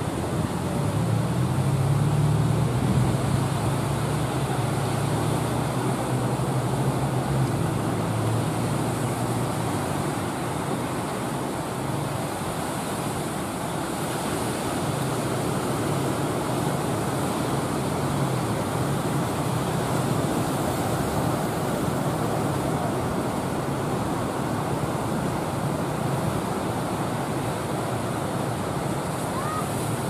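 Surf and wind on rough sea, a steady rushing noise with a low rumble underneath that swells during the first ten seconds.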